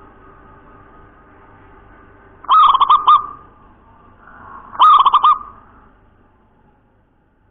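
Zebra dove (local perkutut) singing: two short cooing phrases about two seconds apart, each a quick run of about four clear notes, over a faint steady hum.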